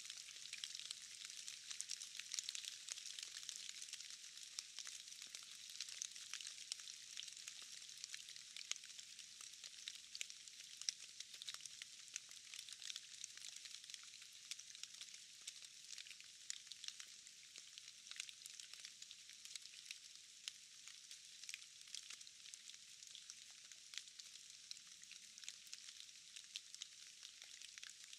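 Steady rain falling in a forest: a faint, even hiss made of a dense patter of individual drops.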